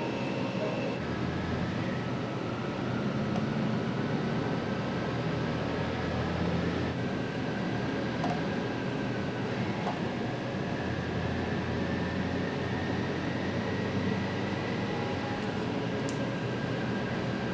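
BMW K 1600 GT motorcycle running on a roller test stand at about 54 km/h during its test run. A steady mechanical hum with a faint high whine, unchanging throughout.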